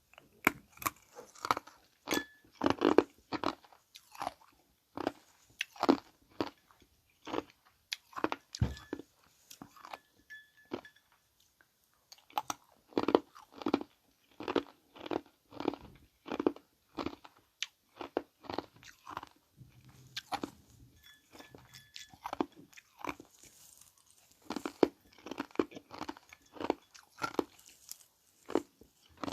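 Ice being crunched and chewed between the teeth, a steady run of sharp bites with short pauses between mouthfuls.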